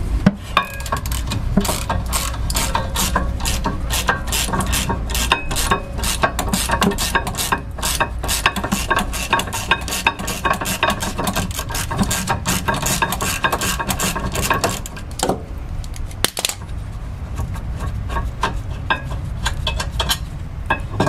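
Ratchet wrench clicking in a fast, even run, about five clicks a second, as the upper 13 mm rear brake caliper bracket bolt is backed out. The clicking pauses about three-quarters through, then there is a single knock and some looser metal handling.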